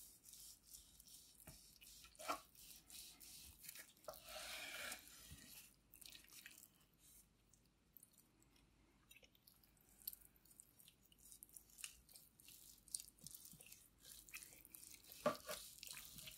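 Faint crunching and sawing of a knife slicing through a smoked beef chuck roll with a crusty bark, with scattered small knocks on the cutting board; a sharp knock about two seconds in is the loudest, and a short stretch of cutting about four seconds in stands out.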